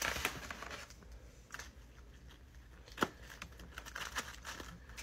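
Quiet rustling and light clicks as a foam takeout clamshell is handled and fried chicken gizzards are picked through with fingers, with a burst of rustling at the start and one sharper click about three seconds in.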